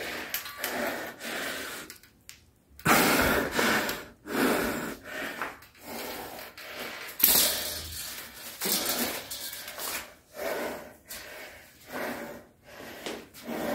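A man breathing hard under strain: forceful breaths and gasps, roughly one a second, as he bends a stiff 70 kg power twister spring.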